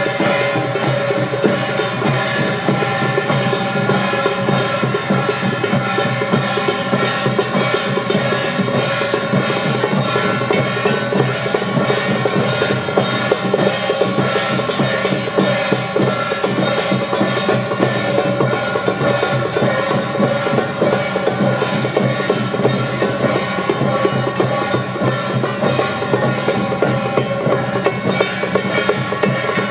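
Temple festival music: drums and wood-block-like percussion keep a steady beat under held melodic tones.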